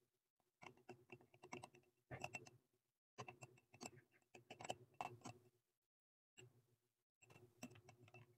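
Tiny metal spoon stirring liquid in a small glass bowl, tapping and scraping against the glass in quick runs of light clicks with short pauses between them.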